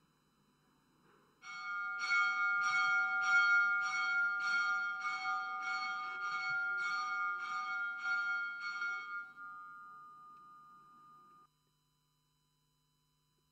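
A bell struck quickly and evenly, about two strokes a second for some seven seconds. Its ringing then fades and cuts off suddenly.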